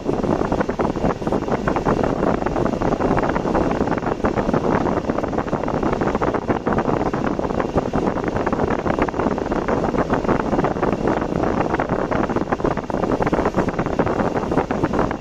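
A car driving along a road: steady road and wind noise, with wind buffeting the microphone in constant gusts.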